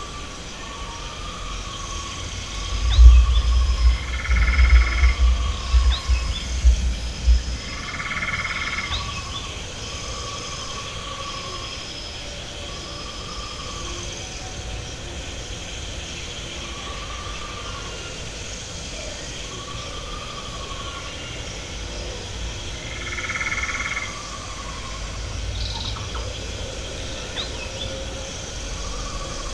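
A steady chorus of frog- and bird-like creature calls: a short call repeats every second or two, a higher chirp repeats in a steady series, and a few louder, fuller calls come about 4, 8 and 23 seconds in. A low rumble, the loudest thing, runs from about 3 to 7 seconds in.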